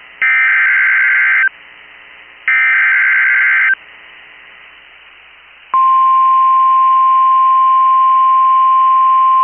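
Emergency Alert System header: the last two of three bursts of SAME digital data tones, each a little over a second long. About six seconds in, the NOAA Weather Radio's steady single-pitch attention tone starts, signalling that a new warning is about to be read.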